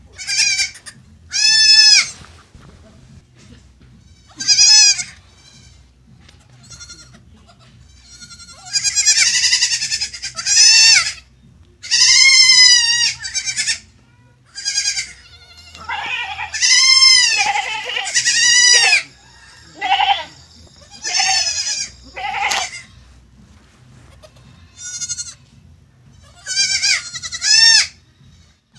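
A long series of high-pitched animal calls, each rising then falling in pitch and lasting up to about a second, repeated a dozen or more times with short pauses between, over a faint low hum.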